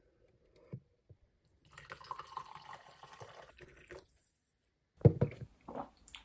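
Coffee poured from a glass French press into a ceramic mug: a steady trickling pour of about two seconds, after two faint clicks. Near the end, a man's voice.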